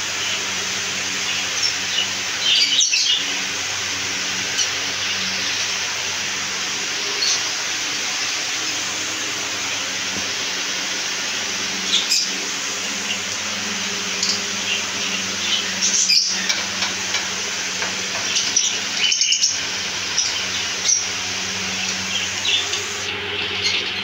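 Small caged parrots, budgerigars among them, giving short, high chirps here and there over a steady background hiss and low hum.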